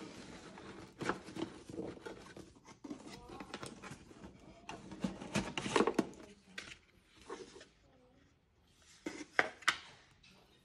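Cardboard packaging and tissue paper being handled as a box is unpacked: scattered rustling and scraping with a few sharp clicks and snaps, two of them close together near the end.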